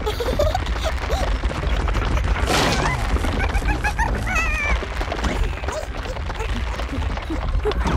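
Cartoon soundtrack: an animated ant's squeaky, wavering yelps and whimpers over light music, with a short rushing noise about two and a half seconds in.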